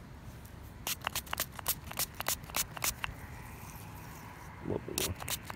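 A thumb rubbing wet, gritty soil off a freshly dug silver Barber quarter, giving a quick run of scratchy clicks for about two seconds. The run starts about a second in, and a few more clicks come near the end.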